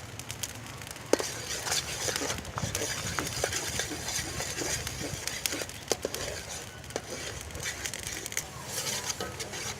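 Cooking handling sounds: scattered light clicks and knocks of utensils against pots and dishes, over a steady low hum and hiss.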